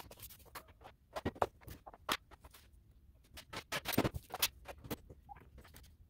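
Small tools and hardware clattering and scraping on a wooden workbench as they are picked up and put away: irregular clicks and knocks, busiest about a second in and again about four seconds in.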